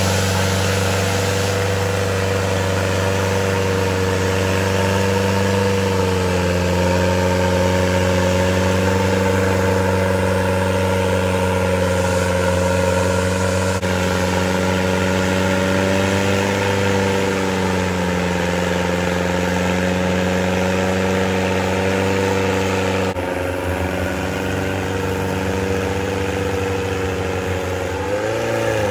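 Off-road 4x4's engine held at steady high revs while its wheels spin in deep clay mud. The pitch rises and dips slightly a few times.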